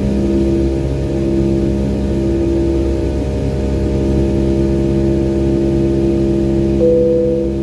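Steady in-cabin drone of a Boeing 757's Rolls-Royce RB211 engines in flight after takeoff, a constant hum with several low steady tones. Near the end a short, higher steady tone comes in.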